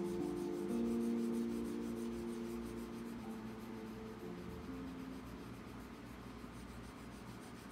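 A paper blending stump rubbing graphite into drawing paper, a soft scratchy rubbing, under quiet background music whose held notes fade out over the first few seconds.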